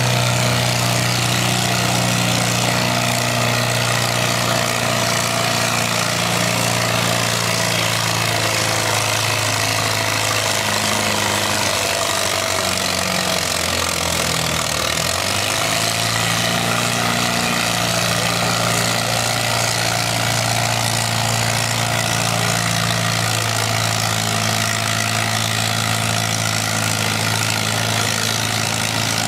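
1956 Farmall 300's four-cylinder engine running hard under load, pulling a weight-transfer sled in a tractor pull. Its note is steady for most of the run and sags briefly about halfway through as the engine lugs, then picks back up.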